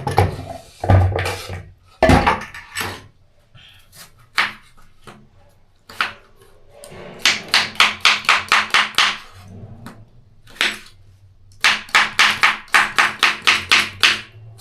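Knife dicing a cucumber on a cutting board: a few scattered chops, then two fast runs of about six chops a second, one near the middle and one near the end.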